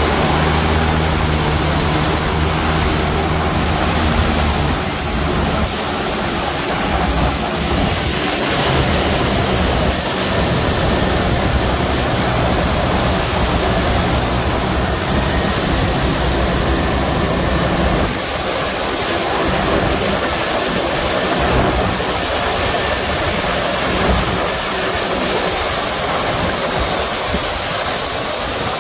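De Havilland Canada DHC-6 Twin Otter floatplane's PT6A turboprop engines winding down after docking. Their low drone fades out about five seconds in, leaving a thin high turbine whine that wavers and slowly falls, over a steady rush of wind and water.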